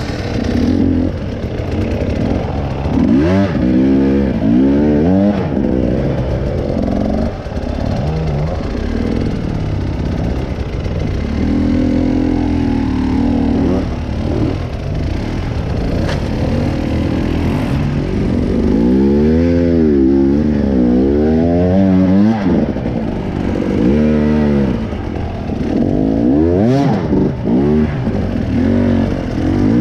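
An off-road vehicle's engine revving up and down again and again under changing load, with some clatter.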